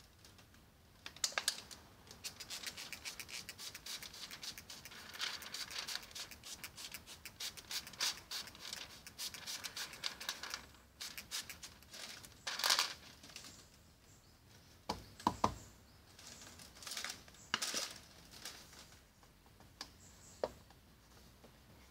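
Sheet of car window tint film crackling and scratching as it is handled and pressed onto the rear window glass: dense rapid crackling for about the first ten seconds, then a few separate louder crackles.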